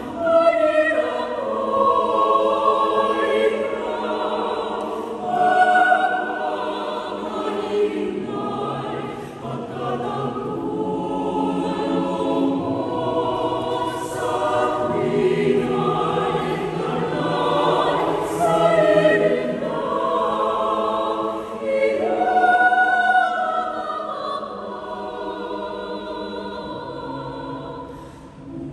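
A choir singing in harmony, with held chords that shift from phrase to phrase.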